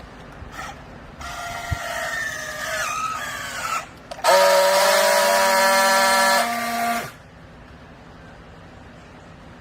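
Hydraulic textile baler press whining under load: a wavering whine for a few seconds, then a louder, steady screech with a hiss for nearly three seconds that cuts off abruptly.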